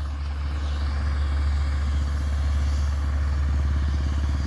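Heavy articulated truck carrying an oversize load passing on the highway: a low, steady rumble that grows a little louder in the first second or so.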